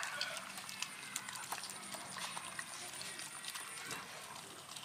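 Dogs eating cooked rice from a metal tray: irregular small clicks and smacks of chewing and licking.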